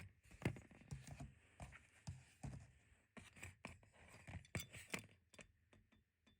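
Faint handling noise: scattered light clicks and short scrapes, as of small objects or the recording phone being moved about by hand.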